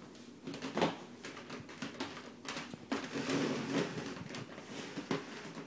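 A wooden puzzle piece knocking and tapping against a wooden peg puzzle board and plastic tabletop as a toddler tries to fit it in place. There are a few sharp knocks: about a second in, near the middle and near the end.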